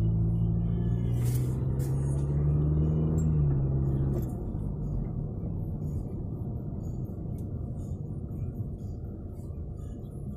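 A car rolling slowly, heard from inside the cabin: a steady low rumble of engine and tyres. A low droning hum is strongest for the first four seconds, then eases off and the rumble grows quieter.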